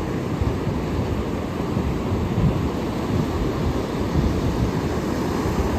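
Ocean surf breaking and washing on the shore, with wind buffeting the microphone; a steady noise heaviest in the low end.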